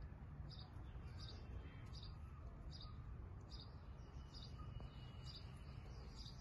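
A bird's short, high chirp repeated at an even pace, about every three-quarters of a second, over a faint low rumble.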